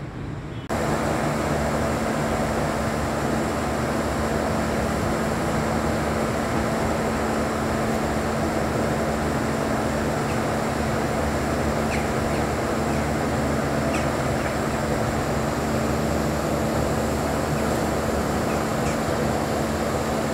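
Steady background noise with a constant low hum, starting abruptly about a second in, with a few faint ticks.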